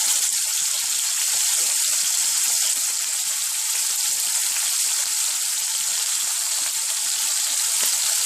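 Bacon sizzling in a hot pot: a steady frying hiss with light crackling.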